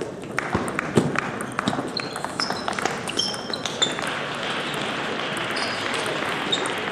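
Table tennis rally: the ball clicking sharply off bats and table again and again, with short high squeaks of shoes on the sports-hall floor.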